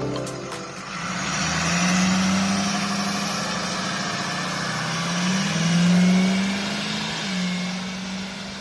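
Truck engine running steadily; its pitch and loudness rise briefly about six seconds in, then drop back to a steady running note.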